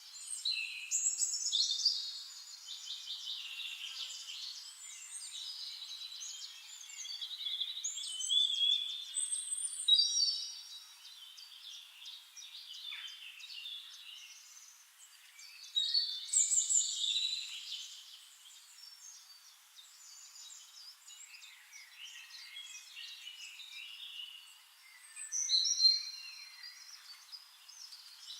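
Songbirds singing, several overlapping chirps, whistles and trills, with louder bursts of song about a second in, around eight to ten seconds, around sixteen seconds and again about twenty-five seconds in.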